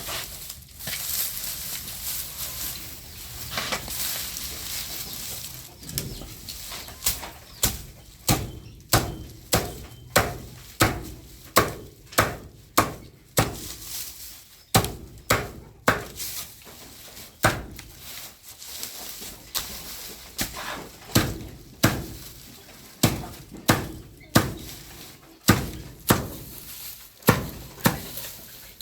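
Hammer striking wood, most likely driving nails into a wooden cage frame: a run of sharp knocks about one a second, starting several seconds in.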